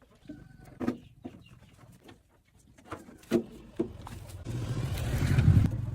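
A vehicle's engine rumbling, swelling louder about four and a half seconds in, after a few scattered knocks and clicks.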